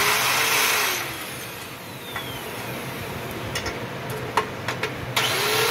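Handheld power grinder grinding metal on a truck cylinder head, its motor spinning down about a second in. A few sharp metal clicks and taps follow, then the grinder starts up again near the end.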